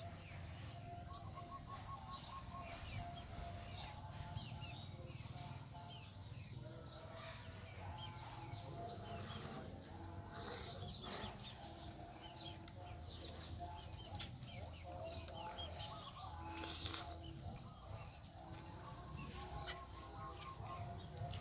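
Chickens clucking and small birds chirping, with occasional faint clicks.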